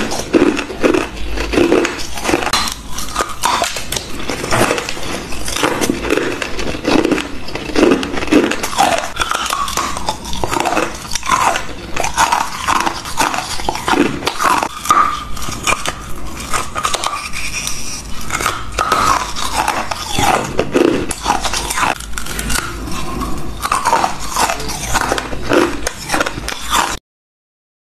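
Hard ice crunching and being chewed: a person biting into frozen, honeycomb-moulded ice sticks, with many crisp crunches in close succession. The sound cuts off suddenly near the end.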